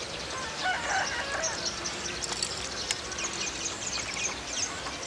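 A rooster crowing about a second in, over constant high-pitched chirping.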